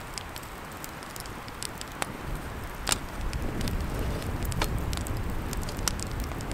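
Wood campfire burning, crackling with scattered sharp pops from the split logs. A low rumble underneath grows a little louder about two seconds in.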